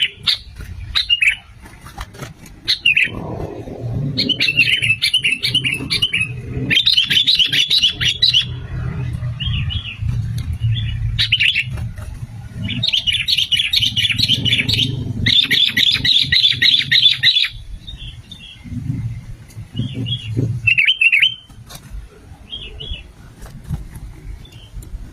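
Sooty-headed bulbuls (kutilang) singing in bursts of rapid, bubbly chirping phrases, with the busiest stretches near the middle and a few shorter calls toward the end, over a low background rumble.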